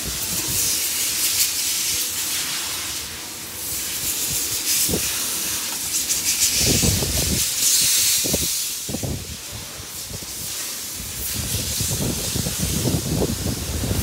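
A steady hiss, with bursts of rustling and dull knocks about halfway through and again near the end, as a screwdriver and hands work at the plastic heater-blower housing.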